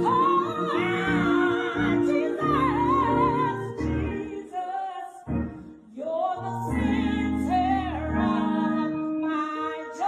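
Gospel song: a voice singing long wavering notes over a steady bass and keyboard-like accompaniment, with a short drop in level about six seconds in.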